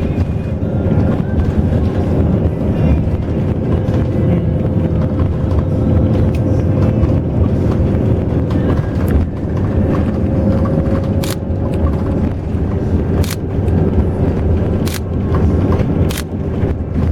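Steady low rumble of a vehicle in motion heard from on board, with a few sharp clicks or rattles in the second half.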